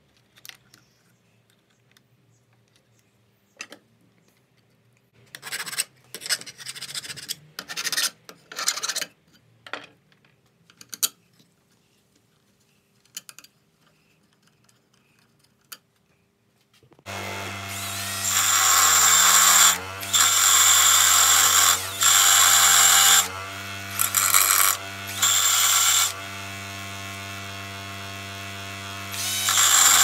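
A few light scrapes and knocks of parts being handled. Then, about halfway through, a bench grinder starts and runs with a steady hum, while a small metal piece is pressed against the wheel in repeated grinding bursts of one to two seconds each.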